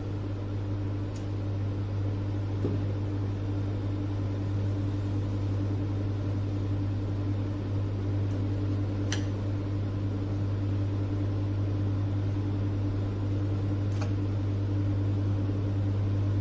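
Steady low electrical hum with a few overtones, unchanging throughout, with a few faint clicks.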